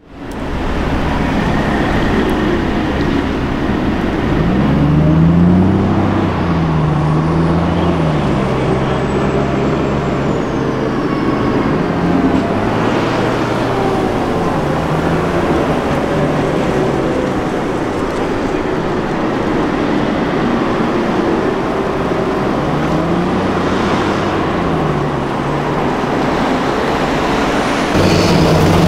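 Heavy military vehicles driving past at close range: diesel engines of a wheeled backhoe loader and armored vehicles, the engine note rising and falling again and again as they accelerate and shift gears. The sound gets louder near the end as an eight-wheeled Piranha 5 armored vehicle passes close by.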